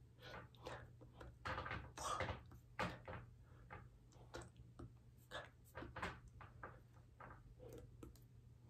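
Faint, irregular soft rustles, taps and breathy puffs from a person signing, from hands, clothing and mouth movements, over a low steady hum.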